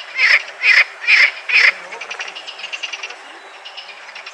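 Frogs croaking: four loud croaks about half a second apart, then a quieter, rapid run of pulsed calls.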